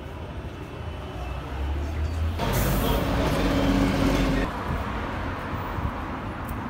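Street traffic rumbling, with a motor vehicle passing close by and rising loudly for about two seconds in the middle before dropping back to a steady hum.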